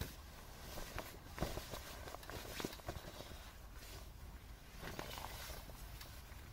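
Rustling of a jacket's fabric as it is pulled on over the head and shrugged onto the shoulders, with a few faint knocks in the first three seconds.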